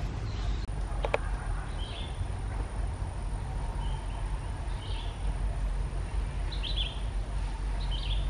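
Short high-pitched animal chirps, about five or six, spaced a second or so apart, over a steady low outdoor rumble, with a single click about a second in.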